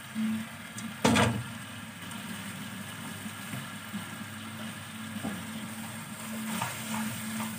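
Stir-fry cooking at a gas stove: a steady low hum, one loud clatter of cookware about a second in, and a few light clicks near the end.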